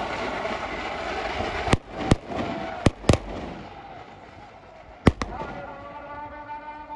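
Loud crowd noise, then six sharp bangs in three quick pairs spread over about three and a half seconds, as the crowd noise drops away.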